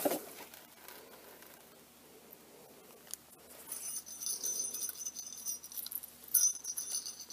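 Paper packaging crinkles at the start. From about four seconds in, a mini bell on a gem-studded cat collar jingles lightly and repeatedly as the collar is lifted and handled, with one stronger shake near the end.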